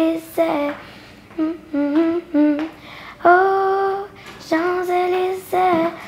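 A young girl singing a slow melody unaccompanied, in short phrases of steady held notes, with one longer held note about three seconds in.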